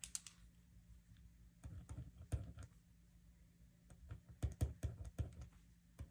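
Pen writing on a paper planner sheet on a hard desk: faint clusters of short taps and scratches, with one brief flurry near the start, then two longer bursts, the busiest about two-thirds of the way through.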